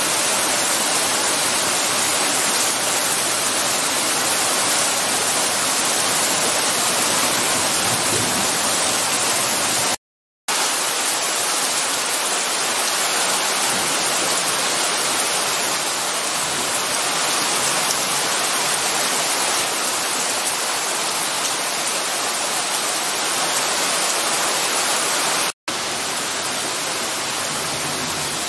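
Torrential rain pouring down in a storm: a dense, steady hiss of rain. It is broken by two brief gaps of total silence, about ten seconds in and again near the end.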